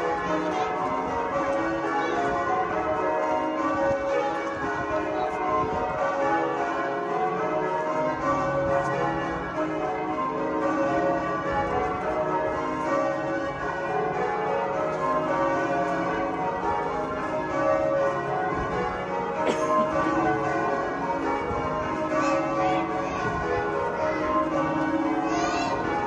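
Canterbury Cathedral's tower bells being change-rung: a continuous, unbroken stream of overlapping bell strokes at several pitches.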